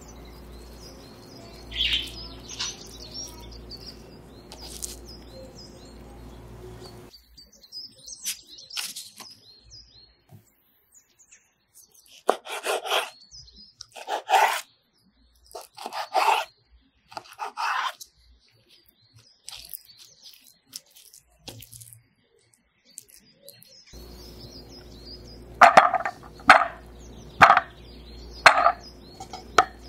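Kitchen knife cutting a raw fish fillet on a wooden chopping board, the blade knocking the board a handful of times, while small birds chirp in the background and a steady low hum comes and goes. Near the end, sliced onion pieces are tipped into the plastic bowl of a food chopper, clattering in several quick knocks.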